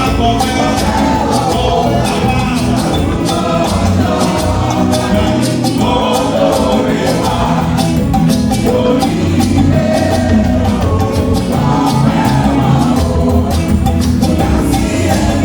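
Church choir singing a gospel anthem over a band, with percussion keeping a steady beat.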